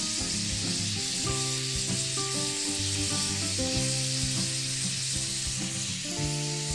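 Beef steak rolls frying in a pan: a steady sizzling hiss. Soft background music with held chords plays over it.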